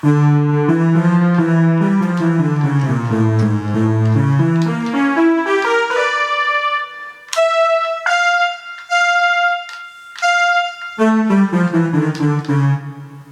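Poly Synth preset of the Travel Sax 2 electronic wind instrument playing a phrase of sustained, shifting chords, then a run of short high single notes in the middle, then chords again.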